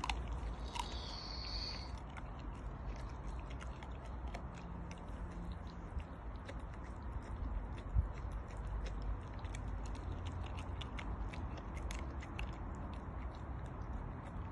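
Bull terrier chewing and gnawing a whole raw chicken, with many small crunching clicks as it works at the carcass. There is one louder thump about eight seconds in.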